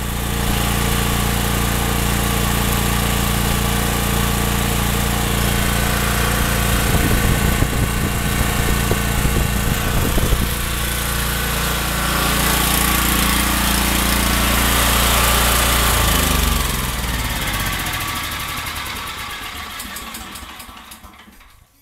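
Briggs & Stratton portable generator's single-cylinder overhead-valve engine running steadily with no load, at about 3700 rpm, within spec. About three-quarters of the way through it is shut off, and its pitch drops as it winds down to a stop.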